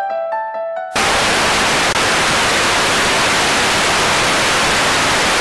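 A few slow single notes of music, cut off abruptly about a second in by loud, steady television static hiss that continues.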